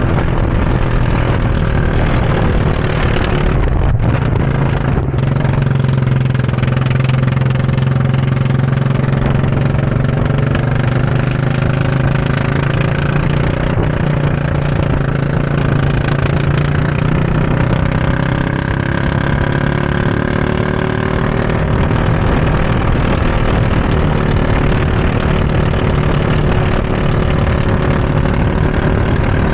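Go-kart engine running hard close to the microphone. Its pitch rises and falls gently as the kart is driven through a lap.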